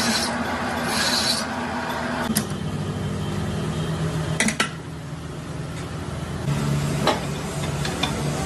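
Metalworking machine running with a steady hum, with metal scraping, two short hisses early on, and a few sharp metal clicks.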